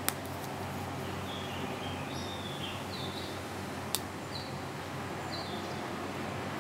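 Omega Speedmaster Rattrapante split-seconds chronograph pushers pressed, giving two sharp clicks about four seconds apart over a steady background hiss.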